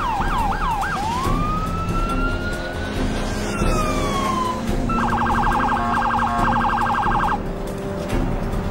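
Police car siren: a fast yelp that changes about a second in to one long wail, rising and then falling. It then switches to a very rapid warble for about two and a half seconds, over a low rumble.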